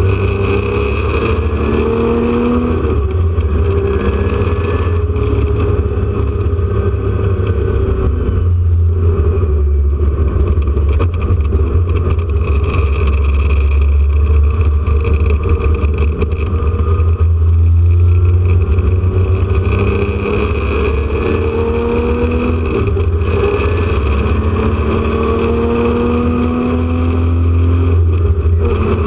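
Porsche 911 RSR's air-cooled flat-six race engine at racing speed, heard from inside the car. Its pitch climbs as it accelerates in the first few seconds, runs on more evenly, then climbs again through the last third.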